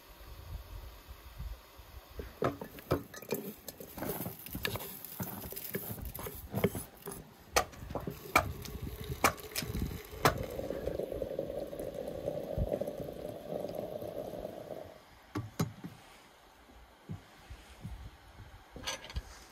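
Hot water pouring from a samovar's tap into a glass teapot of loose tea, a steady stream lasting about five seconds from about halfway through. Before it come a series of sharp clinks and knocks, and a few more knocks follow near the end.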